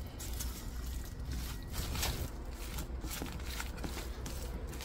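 A spoon mixing bibimbap rice in a bowl: soft squishing with scattered light clicks and scrapes against the bowl, over a steady low hum.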